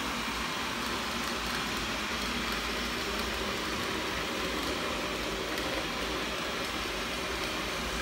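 First-generation Xiaomi Mi robot vacuum running as it cleans, giving a steady, even whirr from its suction fan and brushes.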